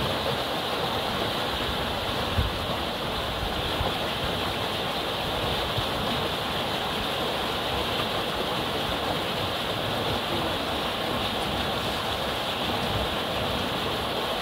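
Steady rushing of a muddy river flowing, with a brief low thump about two seconds in.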